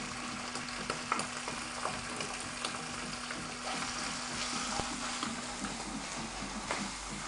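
Hot olive oil sizzling in a frying pan as canned tuna is tipped in and stirred with a wooden spoon, with scattered light clicks of the spoon against the pan.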